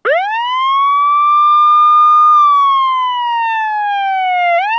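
Ambulance siren wailing, loud. The pitch sweeps up quickly, holds high, slides slowly down, and starts to climb again near the end.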